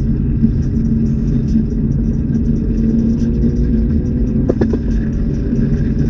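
Holden Commodore's engine running steadily at cruise with a low, even drone. Two brief clicks come about four and a half seconds in.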